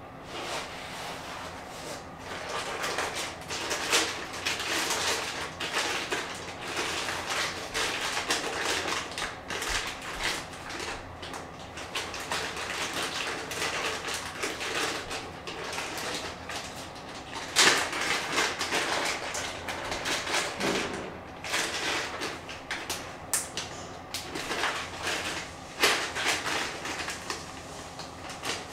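Plastic packaging bags crinkling and rustling as parts and cables are handled and lifted out of a foam packing tray, with a few sharper clicks and knocks.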